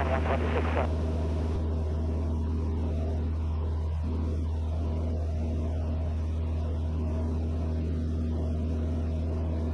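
Van's RV-6A light aircraft's piston engine and propeller droning steadily in cruise, heard as cockpit audio, with an even low hum that holds one pitch throughout.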